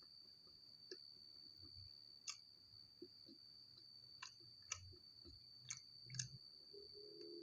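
Faint close-up chewing of toast, with scattered soft mouth clicks, over a steady high-pitched whine.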